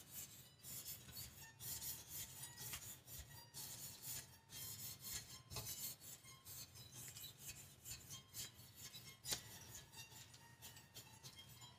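Faint, irregular scraping and rubbing as a hand works over a plastic soap-cutting frame and a loaf of handmade soap, pushing herb crumbs along.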